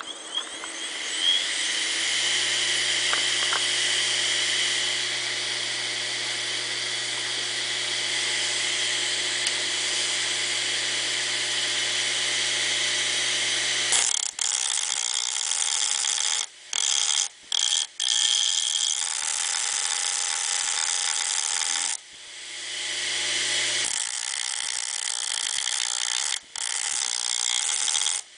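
Hard disk drive converted into a grinder, its spindle motor spinning a sandpaper-covered platter. It spins up with a hum rising in pitch in the first two seconds, then runs steadily with a high whine and hiss. In the second half the sound cuts out abruptly several times.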